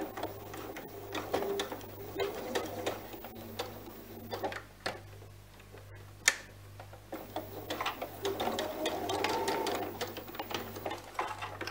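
Electric domestic sewing machine stitching a seam in short stop-start runs, the needle ticking rapidly, with one sharper click about six seconds in.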